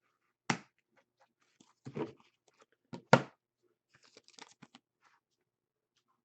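Trading cards and their packaging being handled: a few separate sharp clicks and rustles, the loudest just after three seconds in, with a quick patter of small ones around four and a half seconds.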